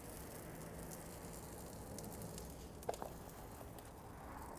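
Faint sizzling of chopped short rib meat on a hot charcoal flat-top griddle, with a few soft ticks as a gloved hand piles the pieces into portions, the clearest about three seconds in.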